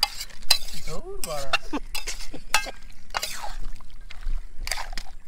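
Metal spatula scraping and clinking against a steel kadai as raw chicken pieces are turned and mixed with spices, in a string of short scrapes. A brief voice is heard in the background about a second in.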